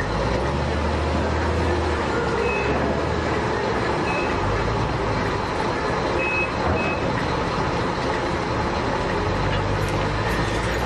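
Diesel engines of heavy earthmoving machines running steadily as a wheel loader pushes against an overturned articulated dump truck. Four short, high warning beeps sound in the first seven seconds.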